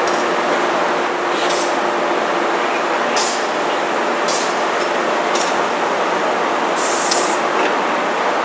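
Amtrak Superliner bilevel passenger cars rolling slowly past, a steady rumbling noise with short hisses about once a second and a longer one about seven seconds in.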